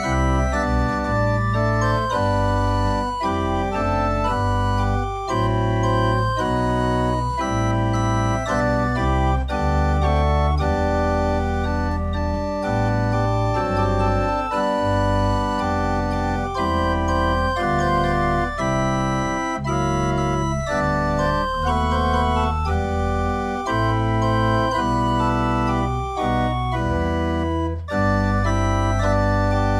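Small pipe organ playing: held chords over a bass line, the notes changing every half second or so, steady in volume.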